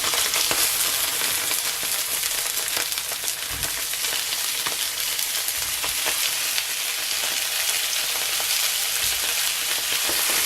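Homemade pork longganisa sausages sizzling in hot oil in a frying pan, a steady dense hiss.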